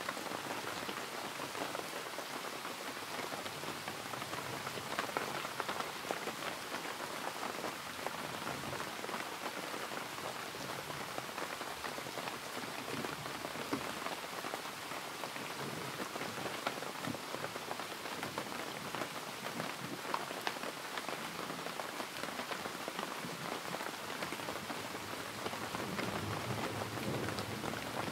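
Steady rain falling, with many small drop ticks over an even hiss. A low rumble, likely distant thunder, starts to build near the end.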